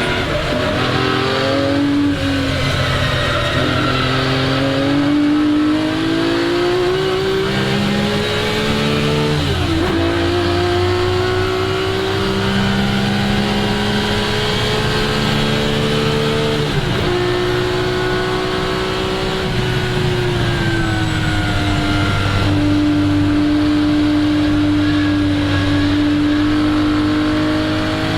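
1961 Ferrari 250 GT SWB's three-litre Colombo V12 pulling hard under acceleration, its pitch climbing and then dropping sharply at two upshifts, about ten seconds in and again about seven seconds later. After the second shift the pitch rises a little, eases down and then holds fairly steady.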